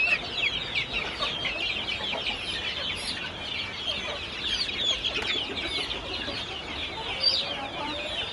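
A flock of caged chickens calling continuously, a dense chorus of many overlapping short, high peeps.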